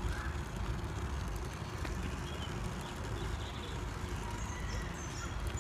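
Wind buffeting the microphone and bicycle tyres rumbling on a paved path during a bike ride, a steady low noise. A few faint bird chirps come through above it.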